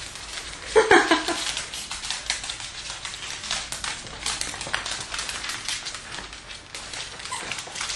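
Two Scottish terriers scuffling and tugging a plush toy out of a paper gift bag: tissue paper and bag rustling and claws clicking on a wooden floor, with a short high squeal about a second in.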